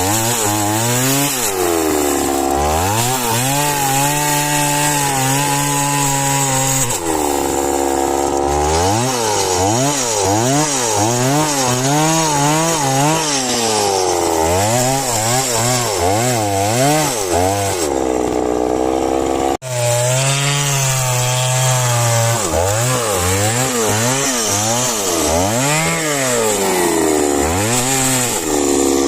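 Chainsaw cutting into a tree, its engine note rising and dipping over and over, roughly once a second, as the throttle and the load on the chain change. The sound breaks off for an instant about two-thirds of the way through.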